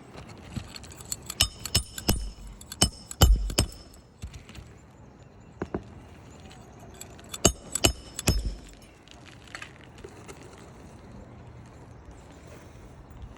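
Hammer blows on metal, driving roofing nails into asphalt shingles: a quick run of sharp, ringing strikes in the first few seconds, then a few more around seven to eight seconds in.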